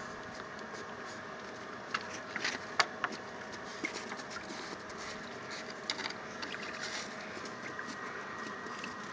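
A puppy's paws scratching and crunching in snow: scattered light clicks and crunches, a cluster of sharper ones a couple of seconds in, over a steady outdoor hiss.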